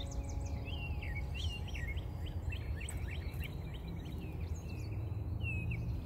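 Small songbirds chirping: a dense run of quick, short falling chirps in the first half, then a few more near the end, over a steady low background rumble.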